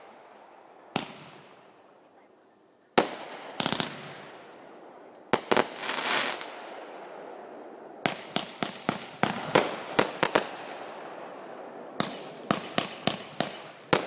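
Fireworks going off: a few single bangs with fading tails, then two quick runs of sharp bangs, each several a second, starting about eight and twelve seconds in.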